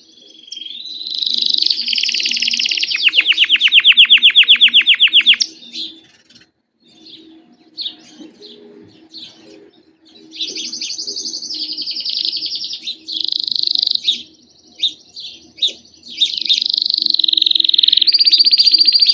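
Belgian canary singing a long song of rapid trills, phrase after phrase, with a break of softer scattered chirps a few seconds in before the loud trills resume.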